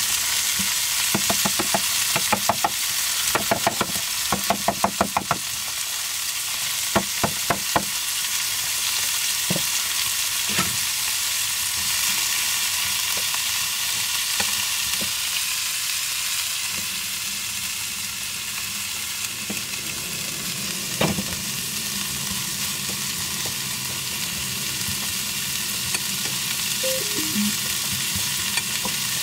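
Vegetables sizzling in hot oil in a frying pan, a steady hiss, while a fork stirs them, clicking and scraping against the pan. The taps come thick and fast in the first several seconds, then only now and then.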